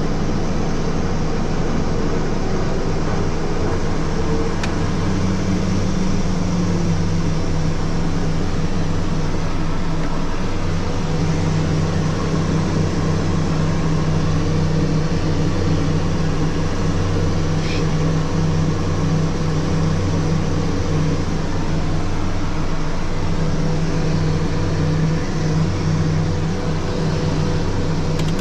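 Twin Garrett TPE331 turboprop engines of a Merlin IIIB, fitted with five-blade MT propellers, running steadily on the ground as heard inside the cockpit: a constant drone with a propeller hum. The pitch rises slightly about five seconds in.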